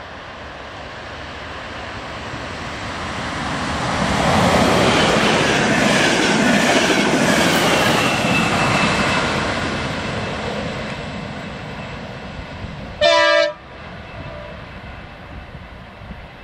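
Electric train approaching and passing at speed, its wheels rumbling and clacking over the rails, swelling as it goes by and then fading away. About two-thirds of the way through, its horn gives one short blast, the loudest sound.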